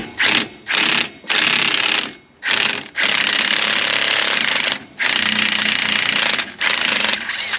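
Earthquake impact wrench hammering in a series of bursts, a few short ones and then longer runs of up to about two seconds, as it breaks loose and runs out the steering gearbox bolts.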